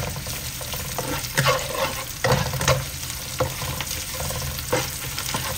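Food sizzling in hot oil in a non-stick wok while a spatula stirs it, with several scrapes and knocks of the spatula against the pan.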